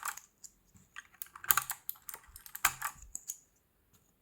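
Keycap puller gripping and pulling keycaps off a mechanical keyboard: short plastic clicks and scrapes in a few clusters, near the start, about a second and a half in, and again near three seconds.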